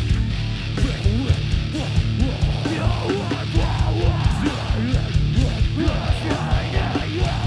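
Hardcore band playing loud and live: distorted electric guitar over pounding drums, with short sliding pitch bends in the guitar line.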